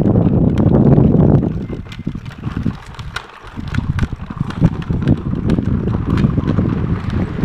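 Hard plastic wheels of a child's push tricycle rolling over asphalt, a low rumble with scattered small clicks and rattles, plus wind buffeting the microphone. The rumble eases off for a moment partway through, then picks up again.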